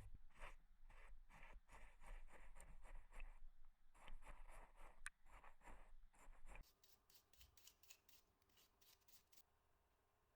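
Brush scrubbing an old brass hammer during washing: quick, quiet repeated strokes, about two to three a second. They stop about six and a half seconds in, and a few fainter, lighter scratches follow.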